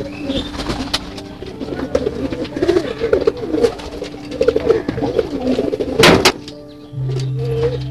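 Domestic pigeons cooing, several birds overlapping in wavering calls. A brief loud rustle about six seconds in.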